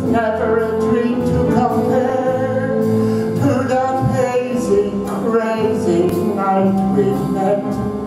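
Male vocalist singing into a handheld microphone over musical accompaniment, holding long sustained notes.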